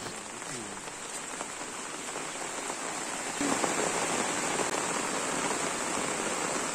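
Steady rain falling on leaves, louder from about three and a half seconds in.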